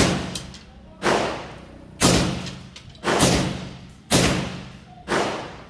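M16 rifle firing single aimed shots, six about a second apart, each loud crack trailing off in a short echo.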